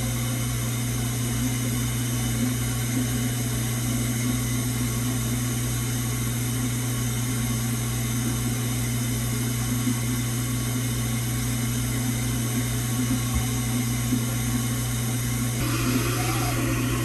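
Kitchen garbage disposal running, a loud steady motor drone with a strong low hum. About a second before the end, a rougher hiss joins in.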